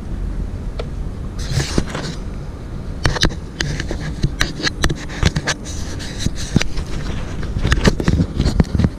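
Repeated clicks, taps and rubbing as a charging cable is handled and plugged in close to the microphone, over a steady low rumble from the scooter.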